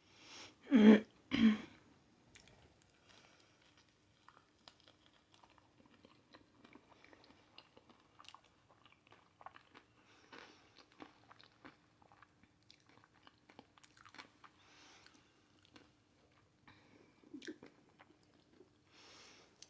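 Close-miked chewing of crunchy hot Cheeto-crusted fried pickles: two loud crunching bites about a second in, then quieter chewing with small crunches and mouth clicks.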